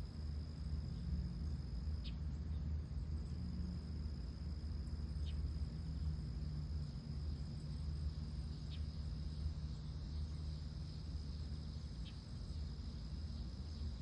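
Steady high-pitched trill of night insects, typical of crickets, over a low rumble, with four short faint high chirps spaced about three seconds apart.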